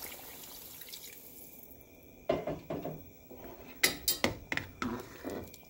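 Water pouring into a pot of potato soup, then several sharp clinks and knocks against the pot, loudest about four seconds in.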